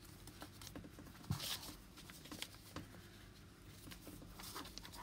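Faint rustling and creasing of a sheet of paper as its corners are folded into the middle and pressed flat by hand, with a soft thump and a louder rustle about a second and a half in.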